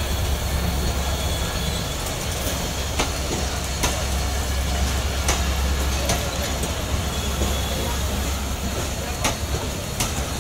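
Intercity train coaches rolling past close by: a steady low rumble with sharp wheel clicks over rail joints every one to two seconds.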